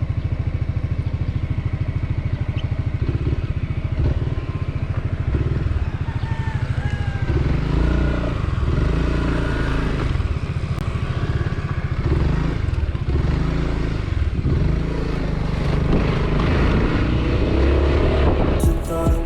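Honda ADV 350 scooter's single-cylinder engine idling with an even pulse just after starting. From about seven seconds in, the engine speed rises and falls as the throttle is worked.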